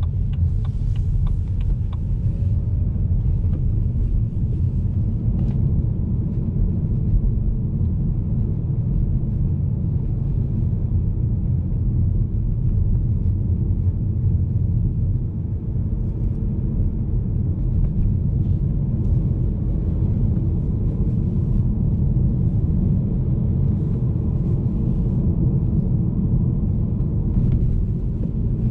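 Cabin sound of a BMW E90 320i's 2.0 L N46 inline-four with the manual gearbox, driving along at a steady pace: an even low engine drone mixed with tyre and road rumble.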